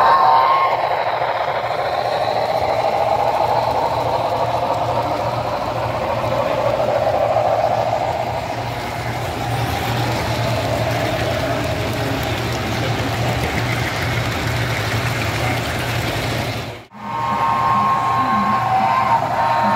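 HO-scale model steam train, a Broadway Limited Southern 610 with passenger cars, running past with a steady mechanical rumble of wheels on track and the locomotive's onboard sound. The sound drops out briefly once near the end.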